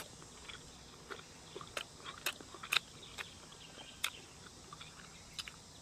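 Faint chewing of a mouthful of chili-coated chicken: irregular soft, wet mouth clicks.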